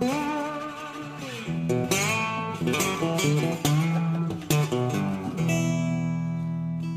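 Instrumental guitar music with plucked notes, several of them bending in pitch.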